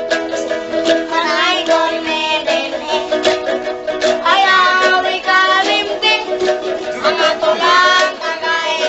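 A child singing a wavering, bending melody over small strummed guitars of ukulele size.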